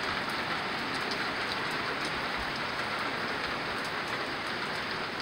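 Heavy rain falling steadily, with scattered drops pattering on a wooden deck.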